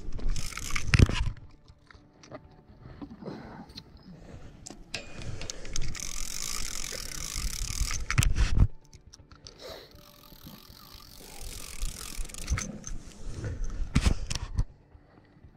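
Fishing reel being cranked in two stretches, a fine whirring ratchet of its gears, with sharp handling knocks on the rod and camera. The loudest knock comes about a second in.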